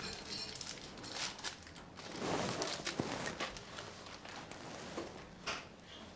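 Paper rustling and soft handling noises, with a newspaper being lifted and rustled near the end.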